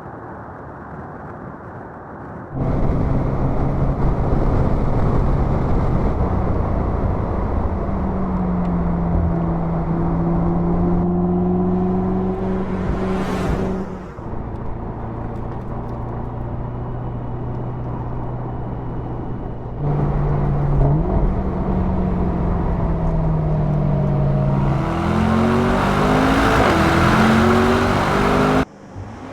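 Mercedes-AMG SL 55's 4.0-litre twin-turbo V8 engine and exhaust while driving, in several edited clips: quieter cruising at first, then louder running with the engine note rising and falling. Near the end it accelerates hard, pitch climbing in steps through several upshifts.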